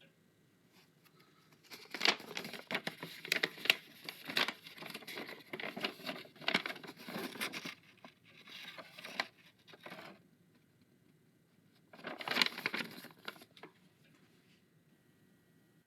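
Rapid clicking and rustling, as of a plastic toy being handled, in a long spell and then a shorter one near the end.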